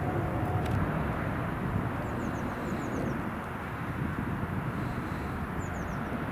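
Steady rumble of a twin-engine jet airliner passing overhead. Small birds give a few short, high chirps, a cluster about two seconds in and a few more near the end.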